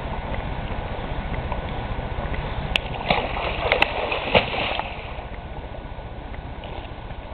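Water splashing and sloshing as a swimmer kicks a homemade mermaid tail at the surface, loudest in a cluster of splashes from about three to five seconds in, over a steady low rumble.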